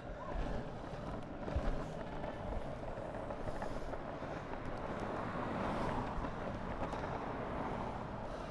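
Longboard wheels rolling over road asphalt: a steady rolling noise, with a couple of low knocks in the first two seconds.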